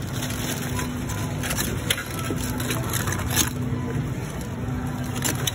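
Scattered sharp clicks and scrapes of hard crab shells and claws in a bin of live blue crabs being picked through, over a steady low hum.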